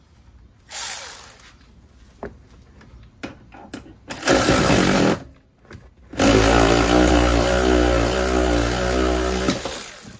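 Cordless electric ratchet running in three bursts, a short one about a second in, another around four seconds in, and a long one of about three and a half seconds from six seconds in, spinning out a rear strut bolt until it comes free.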